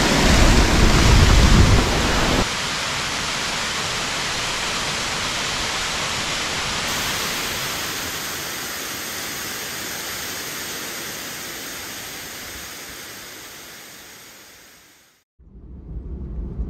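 Waterfall rushing, a steady noise of falling water with a deep rumble in the first couple of seconds. It fades out slowly over the second half and stops about fifteen seconds in.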